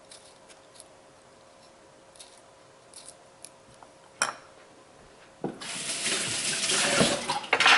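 Kitchen tap turned on, water running into the sink for about two seconds, after a few light clicks and a sharp knock about four seconds in.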